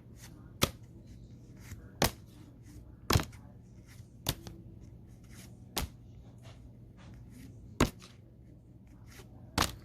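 Pokémon trading cards being handled one at a time out of a freshly opened booster pack, a sharp card snap or tap every second or two, seven in all.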